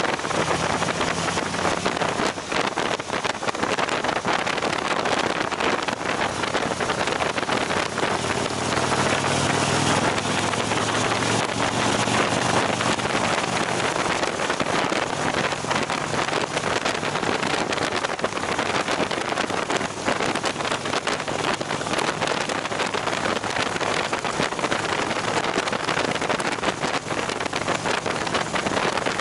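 Wind rushing over the microphone of a motorcycle at highway speed, with the engine's low, steady running note underneath; the engine note grows stronger and shifts in pitch around ten seconds in.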